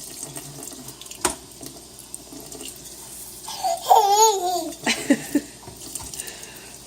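Water running into a kitchen sink from the faucet, with a few sharp splashes or knocks, and a young child's high, wavering squeal about three and a half seconds in.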